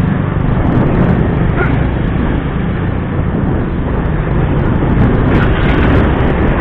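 A small motorcycle running while being ridden, its engine noise mixed with wind rushing over the microphone as a steady, loud rumble.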